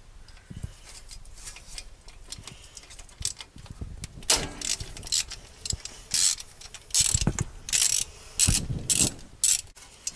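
Hand socket ratchet clicking as bolts on the side of the engine's cylinder head are undone, with louder bursts of quick ratcheting strokes from about four seconds in.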